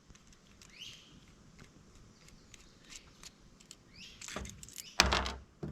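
Faint small clicks and two short scrapes of small metal parts being handled while a multi-tool is reassembled, with a louder rustling bump near the end.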